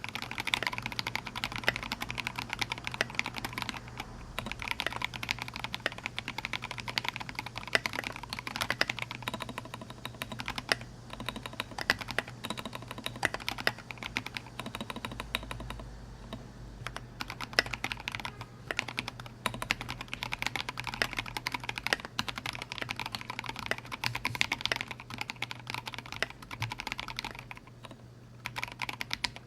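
Typing on a Duck Orion V2 custom mechanical keyboard with vintage Cherry MX Black linear switches (58 g springs) on an aluminium plate, under SA-profile keycaps: a continuous stream of keystrokes with short lulls near the middle and near the end.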